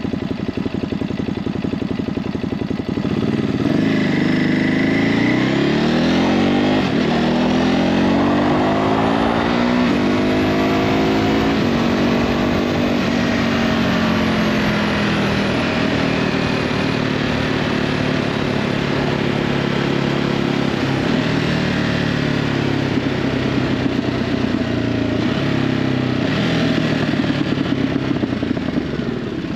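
Ducati Hypermotard 950's L-twin engine through its stock exhaust, pulling away about three seconds in and revving up through a gear change, then running at a steady cruise and easing off near the end.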